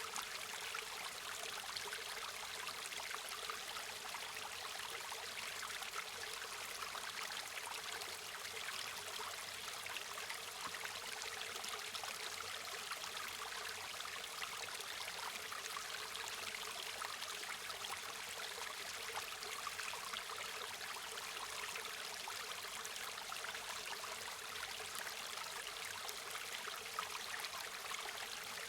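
River water flowing and babbling over stones in a steady, even rush with fine splashing detail and no pauses.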